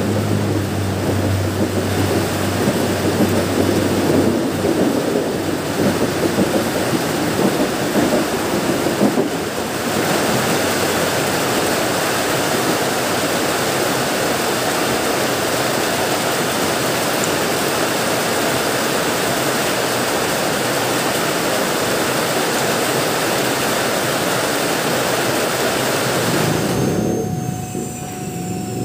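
Passenger train running through the station at speed on wet track, a heavy rumbling clatter for the first several seconds. This gives way to a steady rushing hiss as spray is thrown up in its wake. Near the end the sound cuts to a quieter steady hum of an approaching CC206 diesel locomotive.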